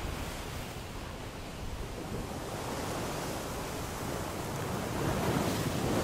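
Surf breaking on a sandy beach: a steady wash of waves that swells louder about five seconds in.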